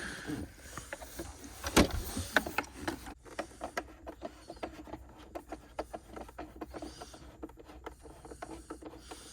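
Infant car seat base's level adjuster being worked by hand, a knock about two seconds in and then a long run of quick, irregular clicks as the adjustment is moved step by step.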